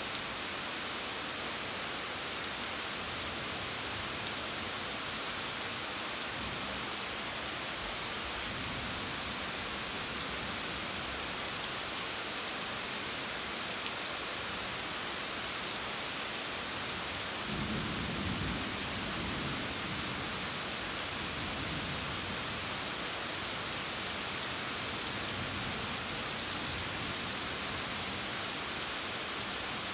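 Steady rain hissing, with a low rumble of thunder rolling for several seconds a little past halfway.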